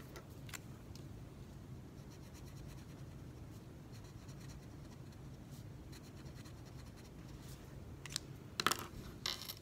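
Felt-tip marker scratching faintly across paper as it writes and colours, with a few sharp clicks near the end.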